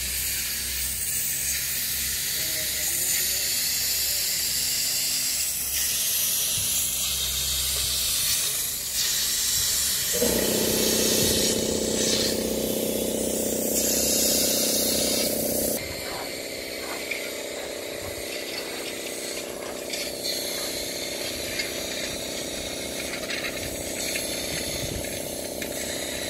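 Construction-site noise: a loud steady hiss, joined about ten seconds in by a steady machine hum. Partway through, the sound changes abruptly to a quieter steady hum with scattered light knocks.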